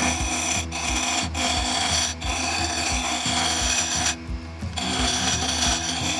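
Carbide turning tool cutting a dense ipe blank spinning on a mini wood lathe: a continuous scraping, broken by short breaks as the tool lifts off the wood and a longer pause about four seconds in.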